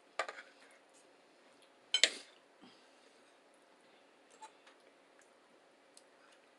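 Eating sounds during a breakfast meal: two short, sharp clicky noises about two seconds apart, the second the louder, then a few faint clicks.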